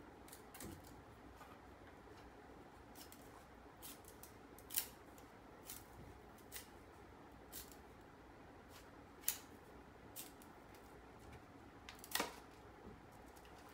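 Bamboo being split with a bamboo-splitting knife: scattered sharp cracks and clicks as the strips part, the loudest three about 5, 9 and 12 seconds in.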